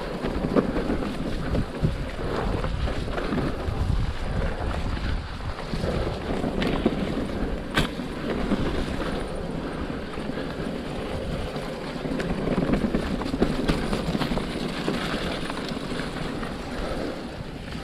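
Electric mountain bike riding fast down a muddy, leaf-covered trail: wind buffeting the microphone over the rumble of tyres in mud and the rattle of the bike over rough ground, with small knocks throughout and a sharp click about eight seconds in.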